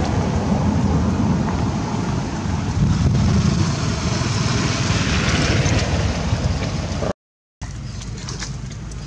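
Steady rumbling outdoor noise, like wind buffeting the microphone, with no animal calls standing out. It cuts out completely for half a second about seven seconds in, then comes back quieter.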